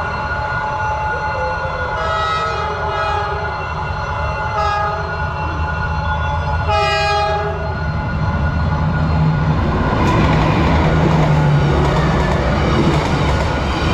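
Train approaching a level crossing, sounding its horn in three blasts (a long one, a short one, then another longer one) over a steady locomotive engine rumble. From about ten seconds in the rolling noise of the train passing swells, with wheels clattering over the rails.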